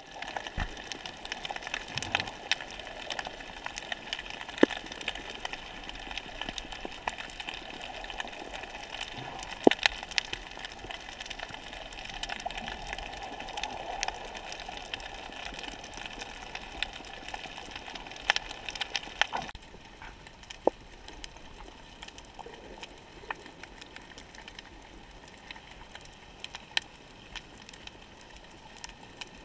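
Underwater ambience on a shallow rocky reef, heard through an underwater camera: a steady hiss scattered with sharp clicks and crackles. The hiss drops abruptly to a quieter level about two-thirds of the way through, while the clicks go on.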